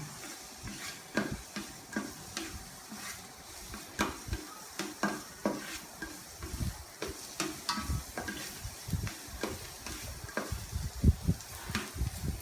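Chopped garlic sizzling in hot oil in a pan while a spatula stirs it, scraping and knocking against the pan at irregular moments.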